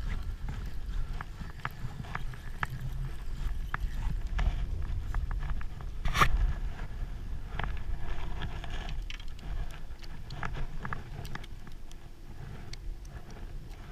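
Low rumble of wind buffeting the microphone, with scattered light clicks and knocks and one sharper click about six seconds in.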